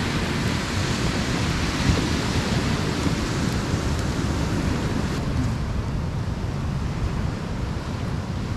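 Steady wind buffeting the microphone, a constant low rumble, with the wash of surf on the beach behind it.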